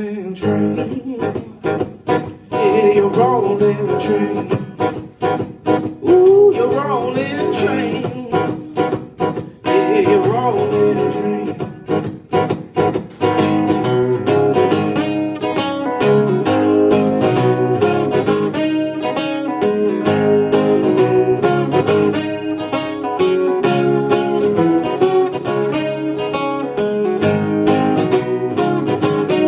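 Solo acoustic guitar strummed in a steady blues rhythm, with a man's wordless singing over roughly the first ten seconds.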